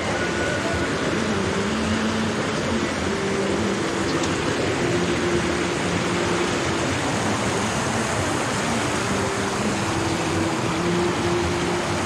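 Shallow mountain stream rushing over rocks: a steady hiss of running water, with faint held tones underneath that shift in pitch every second or so.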